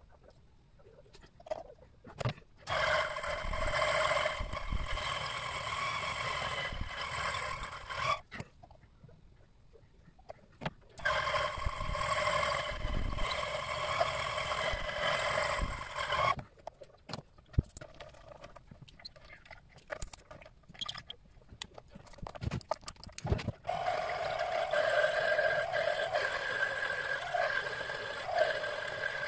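Mini-lathe running in three stretches, its motor and spindle giving a steady whine while it turns a thin metal rod in the chuck. The first run starts a few seconds in and stops about eight seconds in, the second runs from about eleven to sixteen seconds, and the third starts at about twenty-four seconds. Scattered clicks and knocks fall in the quiet gaps between runs.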